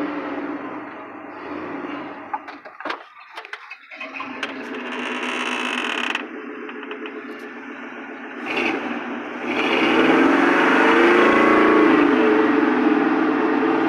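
Truck engine running steadily. The sound drops out briefly with a few clicks about three seconds in and gets clearly louder from about ten seconds in. The owner hears a knocking or rattle in it that he suspects is the lifters or the timing.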